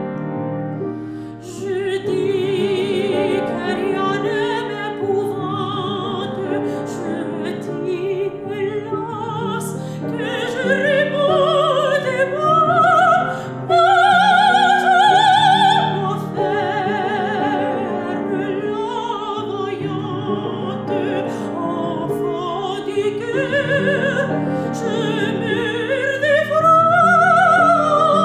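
A woman singing classical opera with wide vibrato, accompanied by a grand piano. The voice comes in over the piano about two seconds in and rises to loud, held high notes midway and again near the end.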